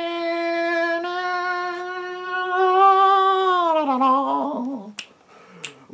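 A man singing one long held note with no accompaniment, steady for about four seconds, then sliding down and wavering away. Two short clicks follow near the end.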